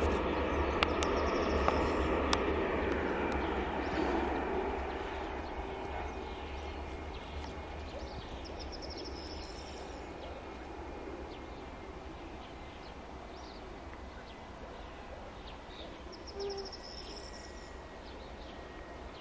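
Jet airliner's engines winding down on the runway after landing: a rushing rumble with a falling whine fades over the first few seconds as the aircraft slows and rolls away, leaving faint distant engine noise with birds chirping.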